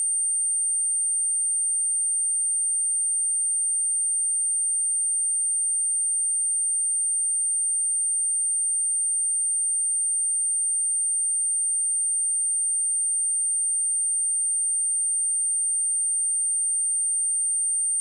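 A single continuous high-pitched sine-wave test tone at 8818 Hz, held perfectly steady at one pitch and level.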